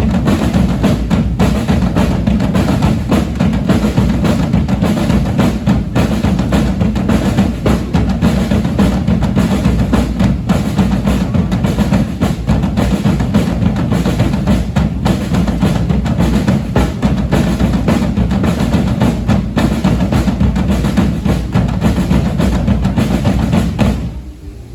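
Percussion band drumming: many drums, bass drums and snares, playing a dense, steady rhythm together. The playing breaks off sharply about a second before the end.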